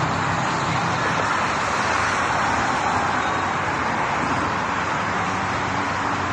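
Steady rush of traffic from cars passing on a multi-lane highway, mostly tyre and road noise with a faint low engine hum underneath.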